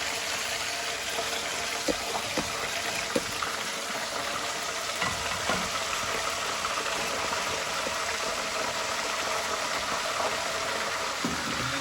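Steady hiss of wok cooking, with a few light metal clinks from utensils and strainer about two to three seconds in and again around five seconds in.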